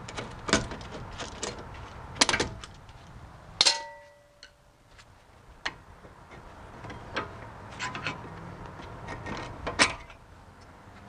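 Metal hand tools clicking and clanking against a disc brake caliper as a bar clamp is taken off and a screwdriver is worked at the caliper. One louder metallic clank about three and a half seconds in rings briefly.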